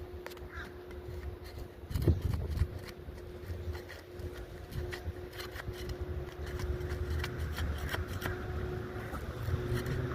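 Old, brittle asphalt shingles being prised apart by hand tool: scattered scrapes and clicks with a knock about two seconds in, over a low rumble and a steady hum. The shingles are stuck fast at their seal strip.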